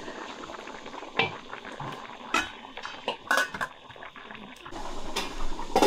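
Metal pots and utensils clinking and knocking in a kitchen: several sharp knocks spread out, the loudest near the end.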